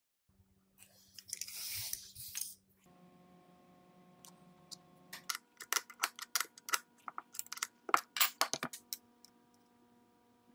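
A quick run of sharp metallic clicks and small rattles from a router bit being handled and seated in a router's collet, lasting about three and a half seconds in the middle. Faint steady tones hum underneath.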